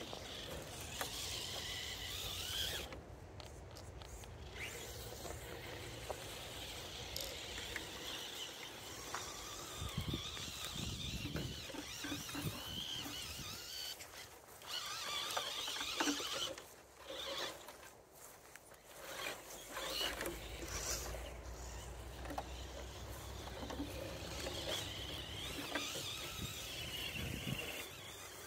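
Small electric motors and gearboxes of RC crawler trucks whining as they drive over grass, the whine wavering in pitch with the throttle.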